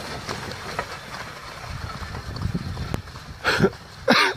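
Horse-drawn carriage rolling past over snow, a steady low rumble of wheels and hooves. Two short, loud sounds come near the end.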